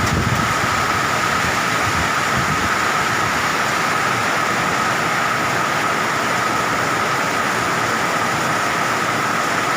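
Heavy rain and strong wind of a thunderstorm, a loud, steady, unbroken wash of noise with a constant thin high tone running through it.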